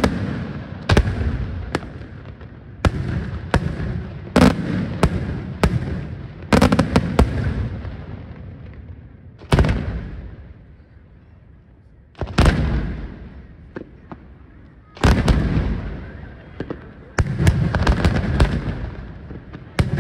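Daytime fireworks: aerial shells bursting overhead in an irregular series of loud, sharp bangs, each trailing off in a rumbling echo. About halfway through there is a lull of a couple of seconds, and near the end the bangs come in a denser run.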